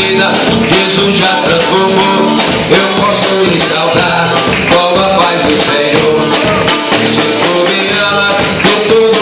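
Band music of a worship song: a steady beat with shaker or tambourine, guitar and other instruments, with some singing.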